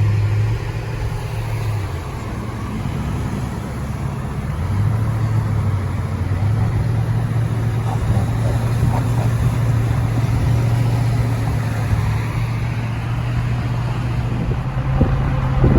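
Road vehicle driving at speed: a steady low engine hum with tyre and road noise.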